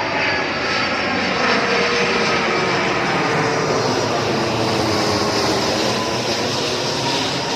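Airplane engine running steadily: a constant wide rushing noise with faint whining tones that slowly drift in pitch.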